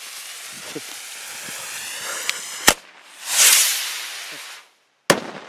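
Fireworks going off: a steady spark hiss, a sharp bang a little under three seconds in, then a loud rushing whoosh that swells and fades over about a second and a half, and another sharp bang near the end. This is a failed launch: the rocket did not climb and went off too early.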